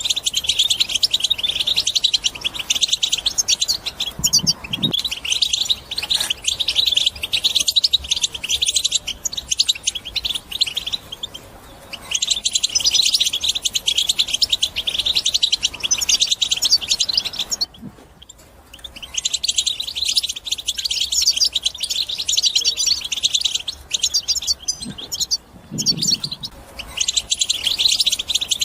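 European goldfinch singing: fast, high twittering in long phrases, breaking off briefly about twelve seconds in and again around eighteen seconds.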